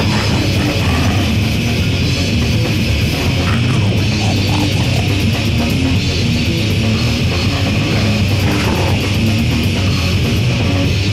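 Goregrind music: a loud, dense, unbroken wall of distorted guitar-driven grind.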